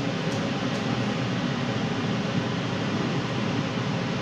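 A steady, even rushing noise with no change in level, like the hiss of a running fan.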